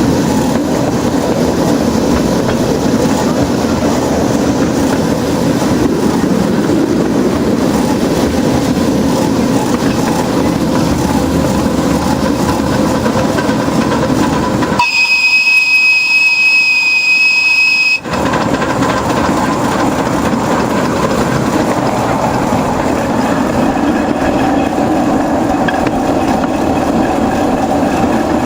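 Miniature railway locomotive running on the track with a steady noise of wheels on rails. About halfway through, the running noise drops out and a steam whistle sounds one steady high note for about three seconds.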